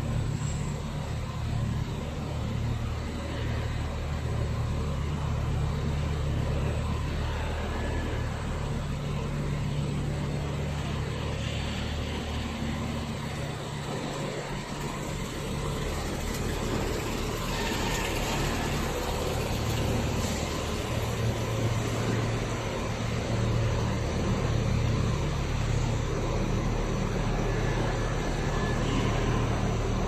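Cable-sheathing extrusion line and surrounding factory machinery running: a steady low hum with an even mechanical noise over it.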